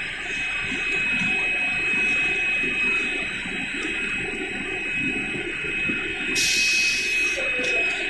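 GKS-14 bag heat-sealing machine running, a steady rushing noise with a constant high whine. A short burst of hiss comes near the end.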